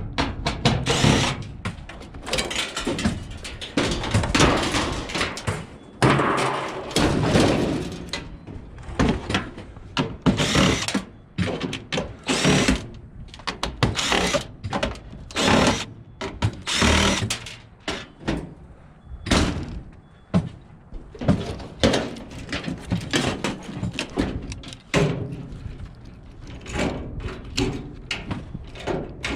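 Irregular clanks, thuds and scraping of hard objects being moved and dropped one after another, with short pauses between.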